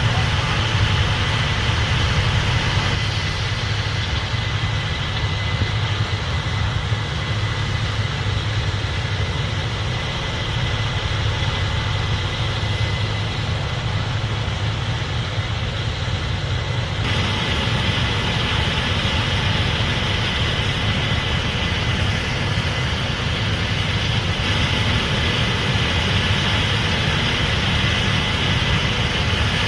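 Case IH 8250 Axial-Flow combine running steadily: a continuous low engine drone with a higher mechanical hiss and whine on top. The higher part drops back about three seconds in and returns suddenly after about seventeen seconds.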